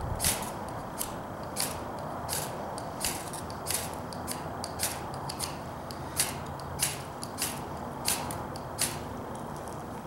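A knife's spine scraped down a ferrocerium rod again and again, throwing sparks onto a bird-nest tinder bundle. Each scrape is a short, harsh rasp, about one and a half a second, and they stop about nine seconds in.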